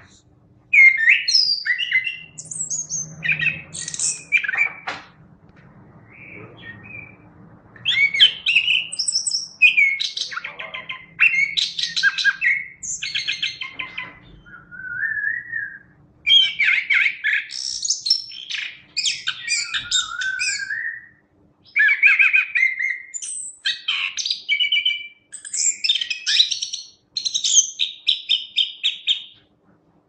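Chestnut-capped thrush (anis kembang) singing vigorously: a long run of rapid, varied phrases of high chirps, fast trills and whistled glides, broken by short pauses.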